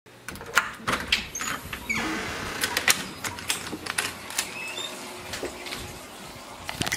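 Clicks and knocks of a house door being opened by its lever handle and deadbolt, then a mesh screen door opening, with a few short high squeaks among the clatter.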